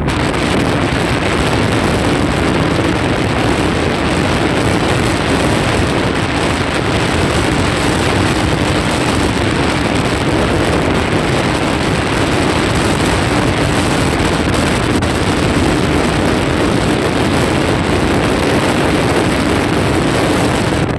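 Steady rush of wind on the microphone mixed with the running noise of a moving vehicle, heard from on board while travelling along a road.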